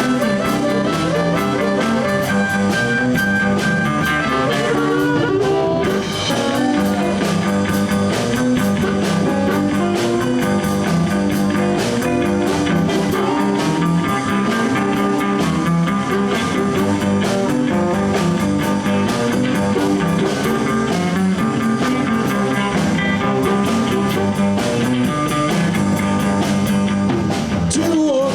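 Live blues band playing an instrumental break: electric guitar, bass and drum kit keeping a steady shuffle groove.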